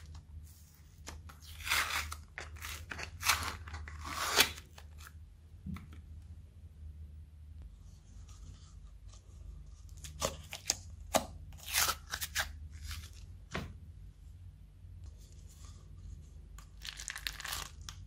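Crunchy slime being pressed and peeled out of plastic moulds by hand, giving crackling, tearing bursts in several short clusters over a low steady hum.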